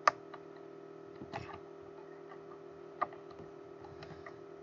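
Computer mouse clicking: three sharp single clicks, the first the loudest, over a steady low electrical hum.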